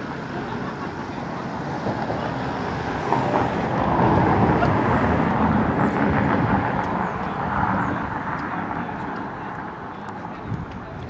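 A passing motor vehicle: a steady engine-and-road noise that swells to its loudest about four to seven seconds in, then fades away.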